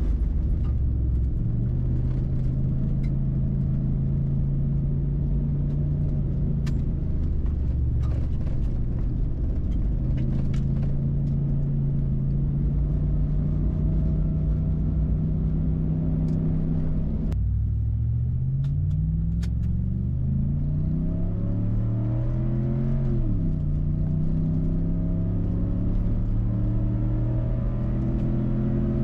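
2014 SVT Ford Raptor's 6.2-litre V8 running under way, holding a steady note for the first two-thirds. It then pulls harder, its pitch rising until an upshift drops it about 23 seconds in, then rising again to another shift near the end.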